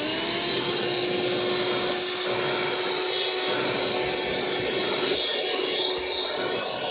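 HOTOR 12-volt, 106 W handheld car vacuum cleaner running. Its motor whine settles to a steady pitch just after switch-on and holds over a steady rush of air.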